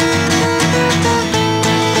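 Instrumental background music with guitar, held notes over a steady beat.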